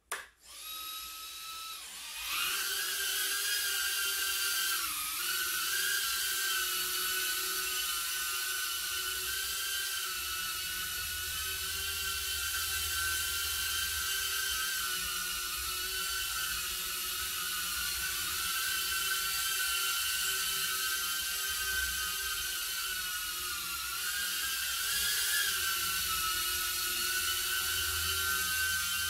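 Small FPV quadcopter's motors and propellers whining at a high pitch as it spins up and takes off. It starts quieter, gets louder about two seconds in, then holds a steady hover whine whose pitch wavers a little as the drone corrects its position.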